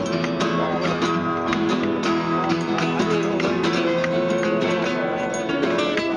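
A 12-string acoustic guitar being strummed, with a bowed musical saw playing a melody above it in a wavering, sliding tone, in phrases, clearest about four seconds in.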